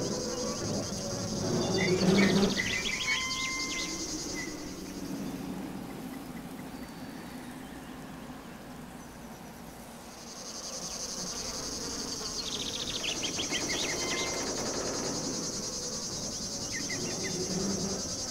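Insects chirring in a steady high drone that fades away for a few seconds around the middle and comes back, with short chirps now and then.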